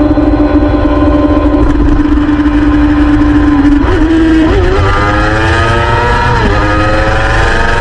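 Motorcycle engine running at a steady note under a heavy rush of wind on the microphone. About halfway through it accelerates, its pitch rising, dips sharply once as it shifts up a gear, then climbs again.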